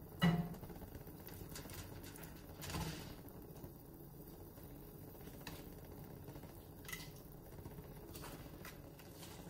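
Metal kitchen tongs tapping and knocking against a nonstick frying pan as steaks are laid into a pan of wine sauce: one sharp knock about a quarter second in, then a few fainter taps over a low steady background.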